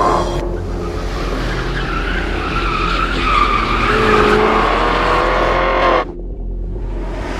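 Jaguar XFR-S's supercharged V8 running under load while its tyres squeal for several seconds, the squeal wavering slightly in pitch and cutting off about six seconds in.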